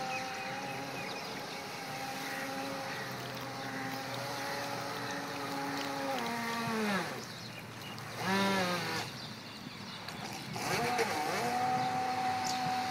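Electric motor and propeller of a radio-controlled model boat whining steadily at speed. About six seconds in the whine slides down as the motor slows. A short rising and falling blip follows a second or two later, and around ten seconds in the whine climbs back up to the same steady pitch.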